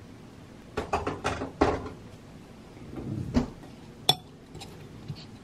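Salad being tossed in a glass bowl: a utensil clinks and knocks against the glass. There is a quick cluster of knocks about a second in, then two sharper single clinks a little past three and four seconds.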